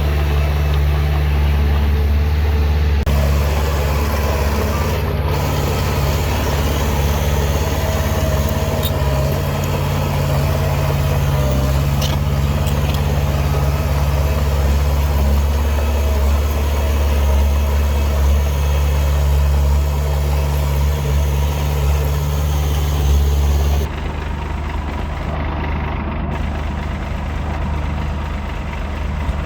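Heavy diesel engine of earthmoving machinery running steadily, with a few brief clicks. It drops noticeably in level about 24 seconds in.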